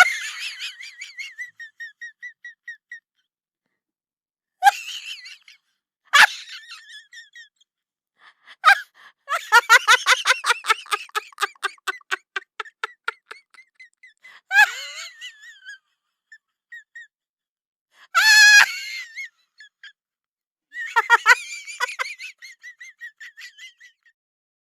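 A string of short, unrelated sound effects, each a second or two long, with silent gaps between them. About nine seconds in comes the longest, a fast chattering run of pitched pulses lasting about four seconds.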